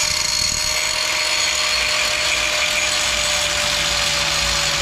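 Angle grinder cutting steel at a steady, even speed, with a constant whine over the grinding hiss. It is cutting away the mushroomed, hammered threads on top of a seized ball joint stud so the stud can be driven out of the spindle.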